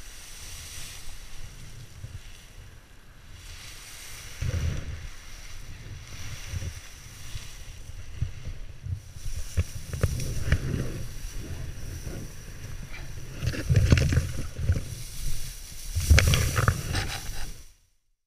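Dry, ripe rapeseed stalks and seed pods rustling and crackling as someone pushes through the tall crop and gathers a paraglider wing and its lines, with low thumps and rumbles on the microphone. The sound grows louder in irregular bursts, and it cuts off abruptly near the end.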